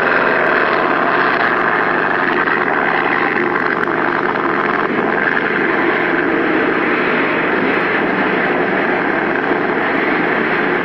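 NASCAR stock cars' V8 engines running flat out on the track, a loud, steady, continuous drone with no breaks.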